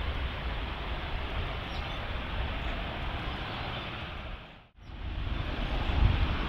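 Airbus A380's four jet engines at taxi power, a steady rushing whine over a low rumble. The sound dips out briefly about three-quarters of the way through, then returns with a couple of low rumbling swells near the end.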